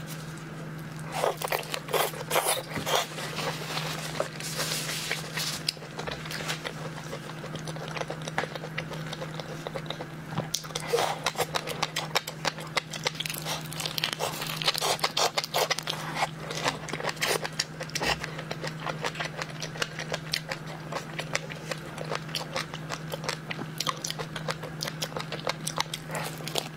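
Close-up eating sounds of shrimp: shells crackling and crunching as they are bitten and chewed, in a dense, uneven run of sharp clicks. A steady low hum lies underneath.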